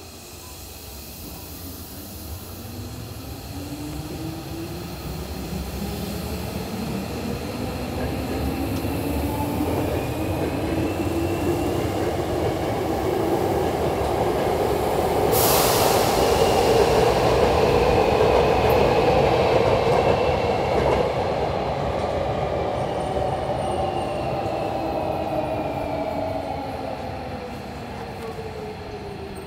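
Hankyu electric train moving through the station. Its motor whine climbs steadily in pitch as it grows louder, peaks a little past halfway over heavy wheel and rail noise, then slides down in pitch as it fades. A short, sharp burst of noise comes about halfway through.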